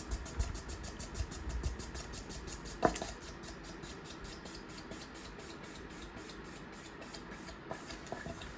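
Hunter Crown Canyon ceiling fan coasting down after being switched off: a faint airy whoosh pulsing with the passing blades, the pulses slowing from about eight a second to about four. A single sharp click sounds about three seconds in.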